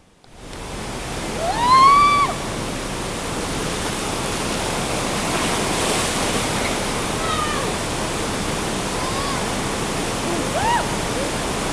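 Waterfall pouring steadily into its pool. Short voice calls rise over it several times, the loudest and longest about two seconds in.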